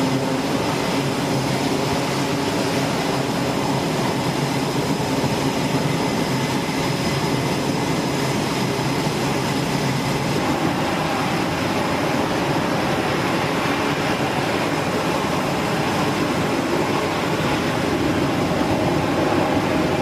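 E-2D Hawkeye's twin turboprop engines running with propellers turning while it taxis on a carrier deck: a loud, steady engine and propeller noise with a thin high whine over it.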